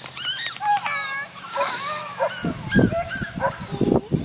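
Redbone Coonhound puppies whining and yipping in a string of short, high-pitched cries that bend up and down in pitch. A low rumbling noise joins about halfway through.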